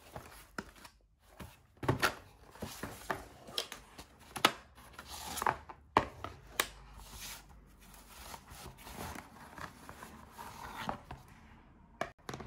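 Product packaging being handled and opened by hand: irregular taps, clicks and rustling, with a few sharper knocks.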